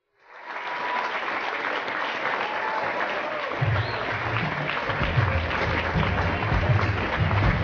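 Audience applauding, fading in at the start. About halfway through, runway music with a heavy bass beat comes in under the applause.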